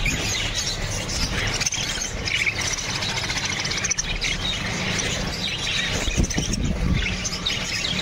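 Many caged budgerigars chattering and chirping at once: a dense, unbroken chatter of short high chirps.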